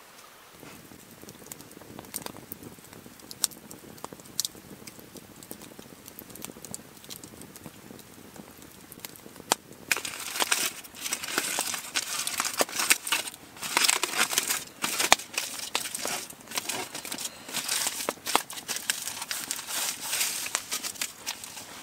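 Aluminium foil and paper crinkling and rustling as a foil-wrapped parcel is opened by hand. It starts about halfway in, after a quieter stretch with only a few faint clicks, and goes on as dense crackly rustle with many sharp crinkles.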